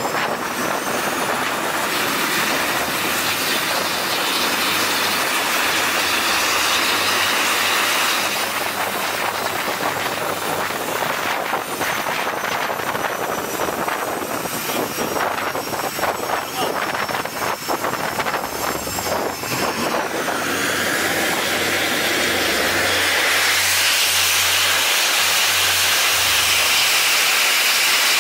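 T-45 Goshawk trainer's turbofan jet engine running on a carrier catapult while the aircraft is hooked up for launch: a steady loud jet noise with a high whine, growing louder a few seconds before the end.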